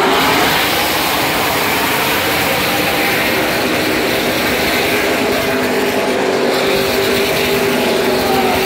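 The V8 engines of a pack of NASCAR Truck Series race trucks running together: a loud, steady blend of many engine notes, with a few pitch slides late on as trucks change speed.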